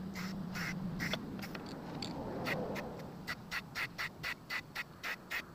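Aerosol spray paint can being shaken, its mixing ball rattling in a quick, even rhythm of about four clacks a second, with a short break about two seconds in.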